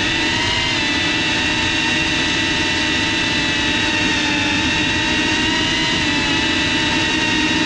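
FPV quadcopter's electric motors and propellers whining at a steady pitch, heard from the GoPro mounted on the drone.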